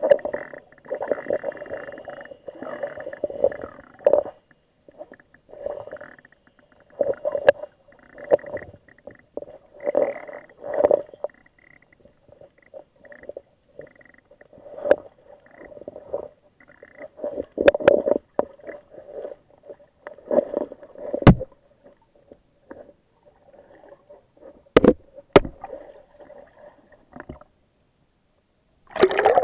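Muffled underwater sound heard through an action camera's waterproof housing: irregular gurgling rushes of moving water, with a few sharp clicks scattered through. Near the end the camera breaks the surface, with a louder rush of water.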